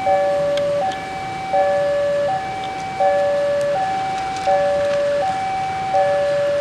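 Railway level-crossing warning alarm sounding a steady two-tone high-low signal, each tone held about three-quarters of a second and the pair repeating about every second and a half.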